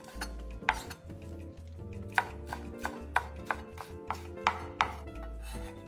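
Cleaver chopping lettuce into shreds on a cutting board: about a dozen irregular knocks of the blade striking the board.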